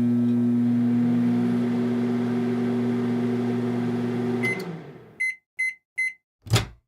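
Microwave oven running with a steady electrical hum, which winds down about four and a half seconds in. Three short beeps then signal the end of the heating cycle, followed by a single clunk near the end.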